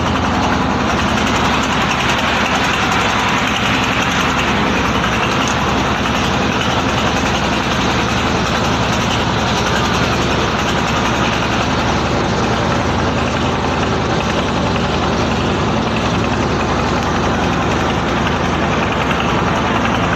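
The engine of a wooden river passenger boat running steadily under way, with a fast, even chugging.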